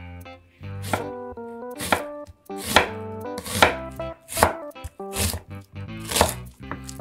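Steel chef's knife chopping an onion on a wooden cutting board: about seven firm chops, roughly one a second. Light background music plays underneath.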